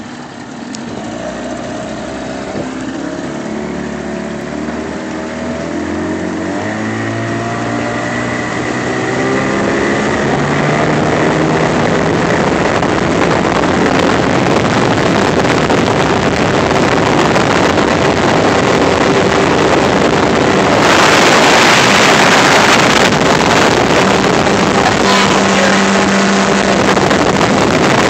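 A 25 hp Evinrude two-stroke outboard motor driving a small aluminum boat, its pitch climbing over the first ten seconds or so as the boat speeds up, then running steadily at speed. Rushing wind and water spray grow loud about three quarters of the way through.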